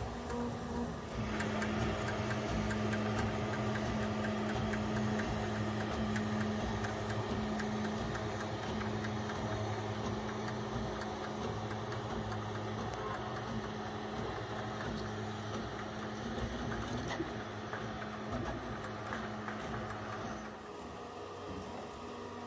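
QIDI X-Max 3 CoreXY 3D printer printing, its motors whirring with a steady hum and rapid ticking as the print head moves. It gets louder about a second in and drops back near the end.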